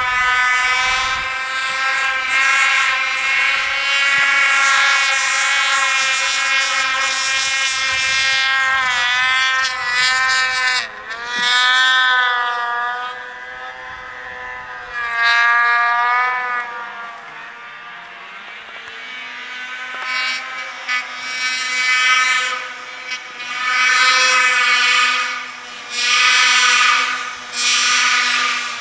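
Snowmobile engines running hard, their pitch rising and falling as the throttle is worked. The sound fades back in the middle, then swells in several surges near the end as a sled rides close through deep powder.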